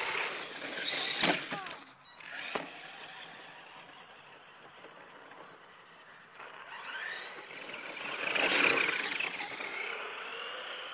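Electric motor of a HIMOTO EMXT 1:10 RC monster truck whining along with its tyres on asphalt. The whine rises and falls in pitch in the first second or so, with a couple of sharp clicks, goes quiet, then swells to its loudest about eight to nine seconds in and fades.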